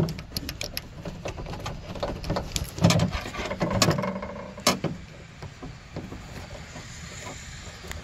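Handling noise from a Toyota Camry trunk latch's electrical connector being worked by hand: scattered plastic clicks and knocks, thick in the first few seconds, then fading to quieter rubbing against the trunk lid's carpet lining. The connector's tab is proving hard to release.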